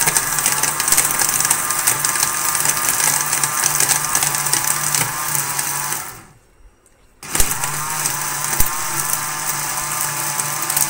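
Electric jug blender running, blending mango, milk, yogurt and chocolate into a smoothie, its motor whine wavering slightly. About six seconds in the motor winds down and stops for about a second, then starts up again.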